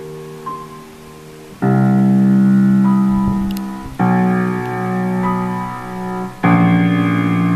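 Piano-led song intro played back from a CD through a freshly repaired McIntosh MC240 valve power amplifier and a pair of small bookshelf speakers: sustained chords, with a new one struck three times, about every two and a half seconds.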